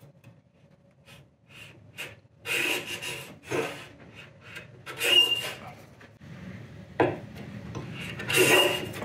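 Melbourne Tool Company block plane taking several short passes across the end grain of a board, each stroke a brief rasping scrape of the blade shaving wood.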